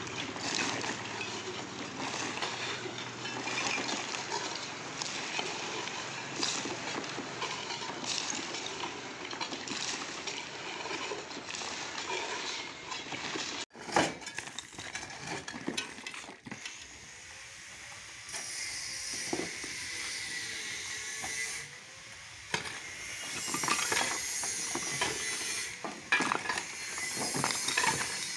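Shovel scraping and scooping gravel and soil, with stones clinking and many short knocks. The sound changes abruptly about fourteen seconds in, becoming quieter with a high hiss later on.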